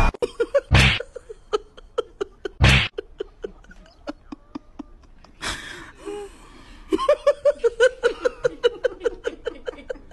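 A person laughing in a fast run of short 'ha-ha' pulses over the last few seconds, after three short loud bursts of hiss earlier on.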